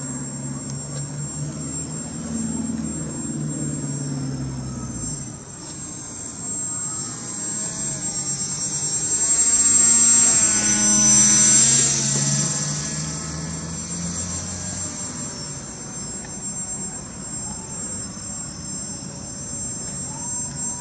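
RC paraglider's backpack motor and propeller whining steadily in flight. The whine grows loud as the glider passes close by about ten seconds in, its pitch wavering, then fades again.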